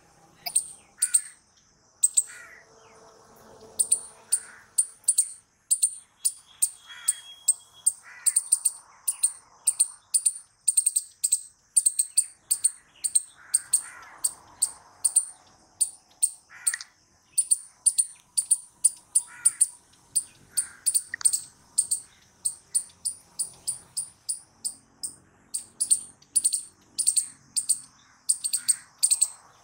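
Palm squirrel calling: a long run of sharp, high, bird-like chirps, two to three a second, pausing briefly now and then. Other birds call faintly underneath.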